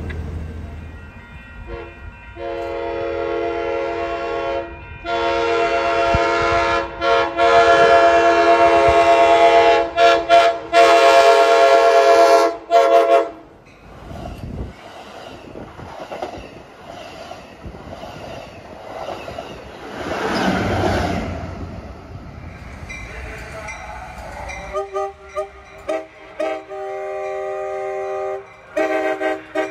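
Amtrak Pacific Surfliner cab car horn sounding a loud chord in a long series of blasts with a few short breaks. This is followed by the rumble of the train on the rails. Near the end another Surfliner cab car horn sounds in shorter, broken blasts.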